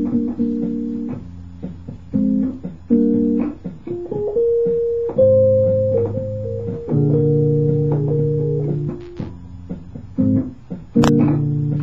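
Electronic keyboard played live: held chords over a low bass line, struck anew every second or two in short phrases.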